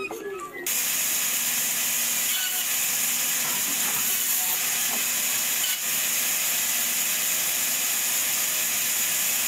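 Woodworking power saw running steadily: an even, loud hiss with a low hum underneath, starting abruptly about a second in.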